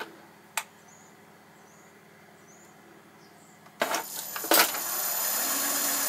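Inverter-driven three-phase motor starting up about four seconds in with a couple of knocks, then running steadily as it spins a Myford Super 7 lathe's spindle and chuck through its belt and pulleys. Before that there are only two small clicks.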